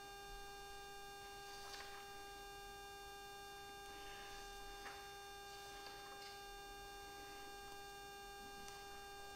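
Steady electrical hum made of several fixed tones, with a few faint, short clicks and rustles of objects being handled on the altar.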